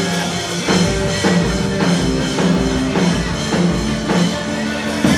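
Instrumental band music with a steady beat: held chords, a bass line and drum hits. The drums and bass come in about a second in.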